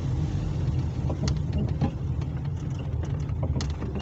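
Steady low rumble of a car's engine and tyres heard from inside the cabin, with a few faint, brief ticks.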